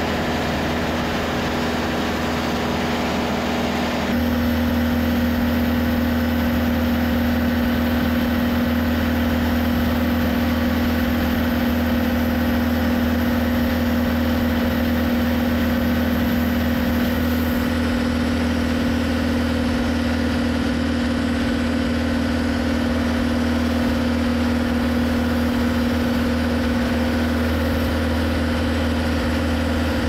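TimberKing 2520 band sawmill running steadily under load as its band blade cuts through a log, with sawdust spraying. The sound changes abruptly about four seconds in and then holds steady.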